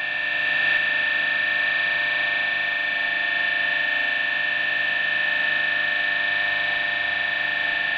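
Circa-1920 Bergmann three-phase slip-ring induction motor, slip rings bridged, running steadily with a constant high whine over its hum.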